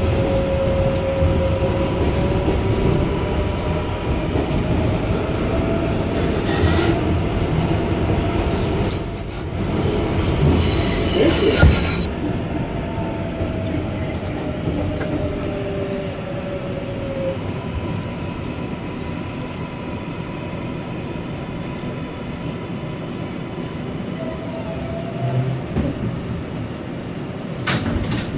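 Kawasaki-built New York City subway car running through a tunnel: a steady rumble of wheels on rail with thin wheel squeal that slowly shifts in pitch. About halfway through a louder, higher squeal ends in a sharp clank, and later the noise eases as the train slows into a station.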